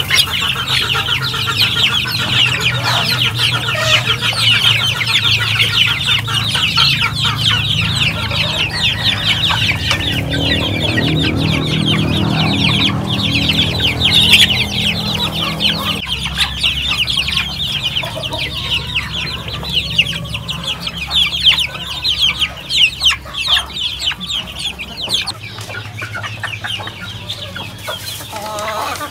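A brood of Philippine native chicken chicks peeping nonstop, many high cheeps overlapping, thinning out somewhat in the second half.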